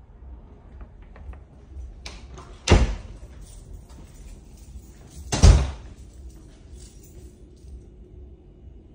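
Closet doors shutting twice, each a loud thud: once about three seconds in and again about two and a half seconds later.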